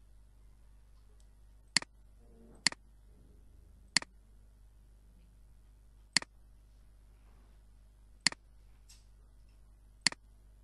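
Computer mouse clicking six times at irregular intervals, each a sharp click followed by a softer release tick, over a faint steady hum.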